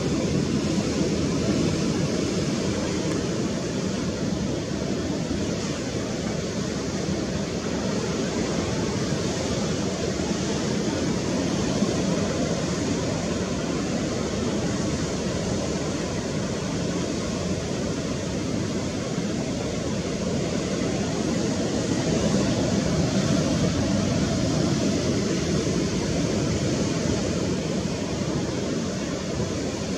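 Steady rushing noise of wind and sea surf, with no distinct events, swelling slightly a little after the middle.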